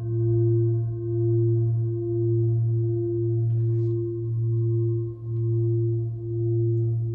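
Large 28 cm hand-forged Nepalese singing bowl, resting on a palm, ringing on in one long sustained note: a deep hum near 115 Hz (A sharp) with higher overtones above it. The loudness pulses slowly, a little faster than once a second.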